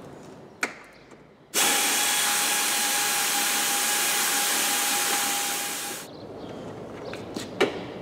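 Power driver with an 8 mm socket running once for about four and a half seconds with a steady whine, backing a self-tapping screw out of a car bumper's lower skirt, then winding down as the trigger is let go. A single click comes shortly before it.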